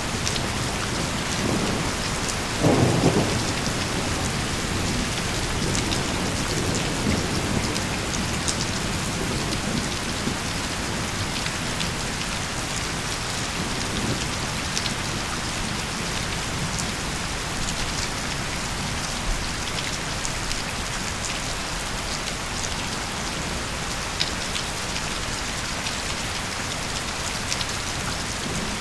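Steady rain falling in a thunderstorm, an even hiss dotted with drop ticks. A low rumble of thunder swells about three seconds in, and a fainter one comes near the middle.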